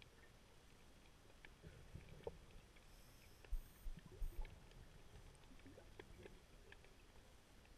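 Near silence of an underwater recording: muffled water ambience through the camera housing, with faint scattered clicks and a few soft low thumps around the middle.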